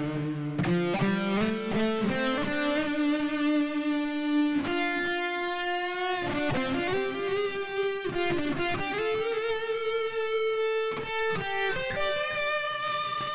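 Electric guitar played through the BOSS BR-900's COSM guitar-amp model (patch P44 'DOWN 2 D'): phrases of quickly picked notes alternating with single notes held and left to ring.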